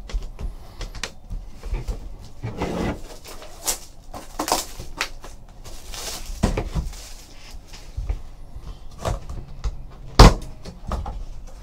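Crinkling plastic shrink-wrap being pulled off a cardboard trading card box, with the box handled and opened amid scattered taps and knocks. A sharp knock about ten seconds in is the loudest.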